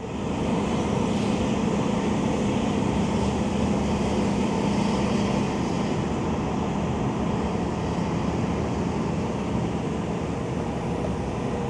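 A vehicle engine running steadily, with a low hum that weakens about halfway through.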